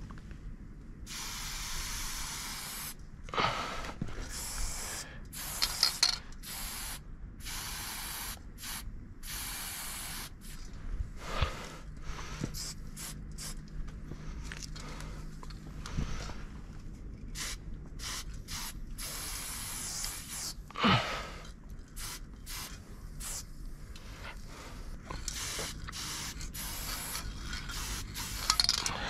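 Aerosol spray paint cans hissing in repeated bursts, some short and some a second or two long, as letters are painted. A few sharp knocks stand out, loudest about six seconds in and near twenty-one seconds.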